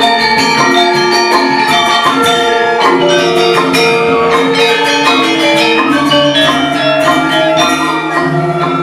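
Balinese gamelan music: metallophones struck with rapid, dense strokes, playing fast shifting melodic figures without pause.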